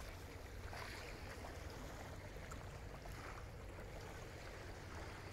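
Faint, steady outdoor noise of wind on the microphone, with small waves lapping at a lake shore.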